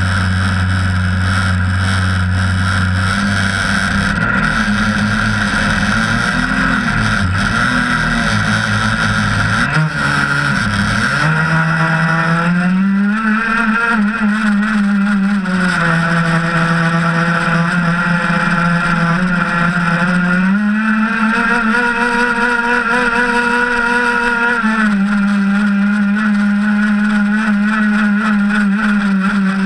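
Zenoah 26PUM 26 cc two-stroke engine of an RC race boat, heard from on board: low and wavering at part throttle for about the first eleven seconds, then rising to a high, steady note at full throttle, dipping slightly and climbing again a few times as the boat runs.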